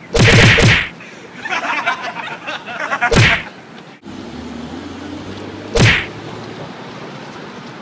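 Several loud, sharp bursts in the first half, then city street traffic with a delivery truck's engine running steadily and one more sharp burst about six seconds in.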